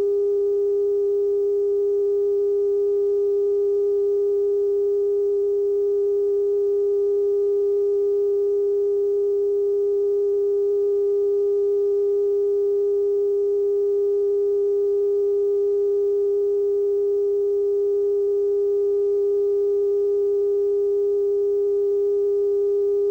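Television station's steady off-air test tone after sign-off: a single unbroken pitch with faint overtones.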